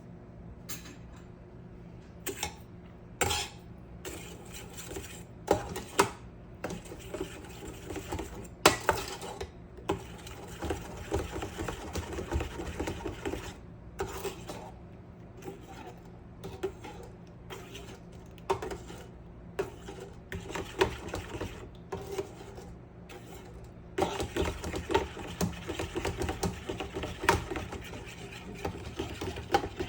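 Irregular household handling sounds: short knocks, clicks and clatter of objects being moved, with stretches of rubbing or scraping, over a low steady hum.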